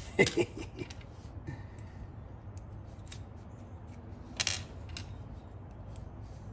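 Small steel nuts clicking and clinking as they are handled and dropped into a pile during sorting, with scattered light ticks and a louder clatter about four and a half seconds in. A short vocal sound right at the start.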